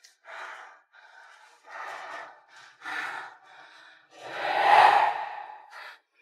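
A woman's breathy gasps and moans, several short ones and then a long, louder one about four seconds in.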